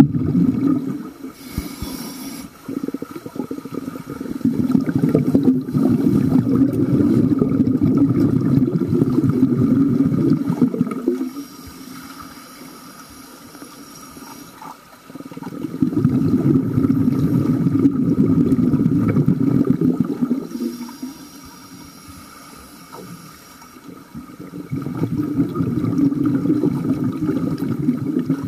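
Underwater scuba breathing through a regulator: long stretches of low bubbling rumble from exhaled air, three in all, separated by quieter gaps that carry a faint hiss.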